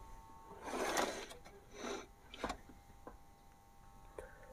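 Faint handling noises: a soft rustle about a second in, then a few small clicks, as an oval speaker is set down beside the amplifier and wired up.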